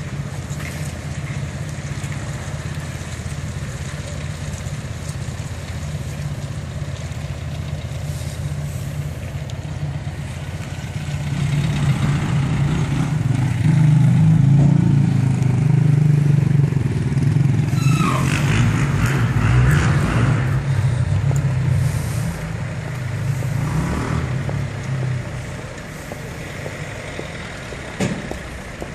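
Heavy diesel truck engine running steadily as it slowly hauls a multi-axle low trailer carrying a large boat, growing louder for a stretch in the middle as the rig works around the roundabout. A brief high squeal is heard about two-thirds of the way through.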